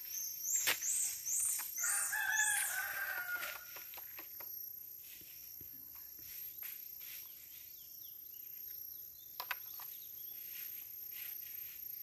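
A rooster crowing once, about two seconds in, under a series of about five high whistling calls, each a little higher in pitch than the last, in the first three seconds. After that only faint outdoor ambience with a few light clicks.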